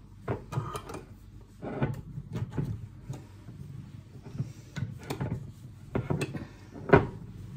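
Glass jars being handled with a cloth and moved on the kitchen counter: cloth rustling and a run of short knocks and clinks as the jars are picked up and set down, the sharpest knock about seven seconds in.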